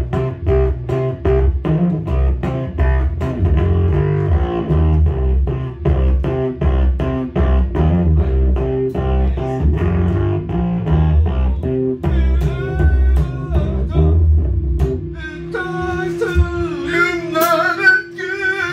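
Electric guitar and bass guitar playing a repeated, evenly pulsed riff through amplifiers. About twelve seconds in, the strumming gives way to a higher melody line that bends and wavers with vibrato over a held low note.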